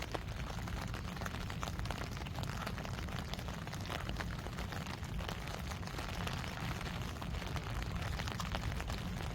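Steady rain falling, heard as a dense patter of fine drop ticks over a low, even rumble.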